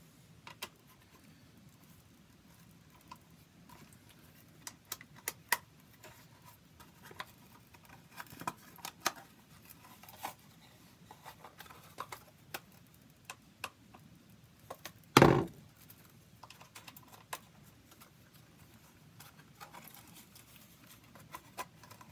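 Scattered small clicks and taps of a stiff Kydex holster and hand tools being handled and worked, with one louder thump about fifteen seconds in.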